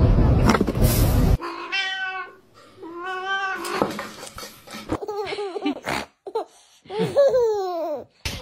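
A loud rushing noise cuts off about a second and a half in. Then a cat meows over and over: two long, drawn-out meows, then a string of shorter meows that fall in pitch.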